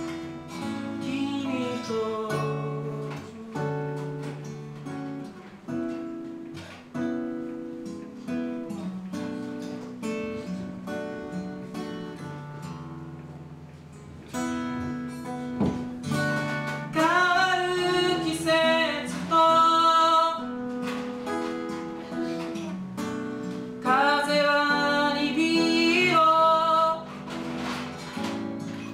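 Acoustic guitar played live, chords and picked notes, with a man singing two louder melodic phrases in the second half.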